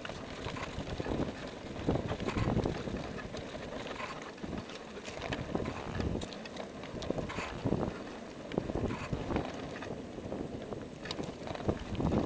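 Wind rushing over a bicycle-mounted action camera's microphone as the bike rolls along, with irregular low thumps and short rattling knocks throughout.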